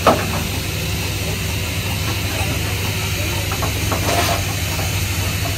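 Standing LMS Black Five 4-6-0 steam locomotive hissing steam steadily over a low hum, with a sharp knock right at the start.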